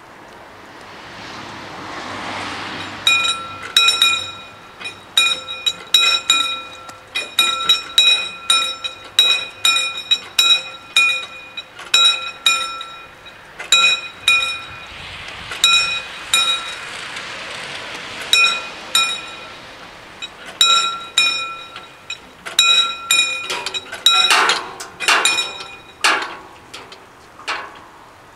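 Two level-crossing warning bells striking rapidly and out of step with each other, a bright ringing clang at roughly two to three strokes a second, while the crossing barriers lower to warn of an approaching train. The bells start a few seconds in and stop near the end as the barriers come fully down.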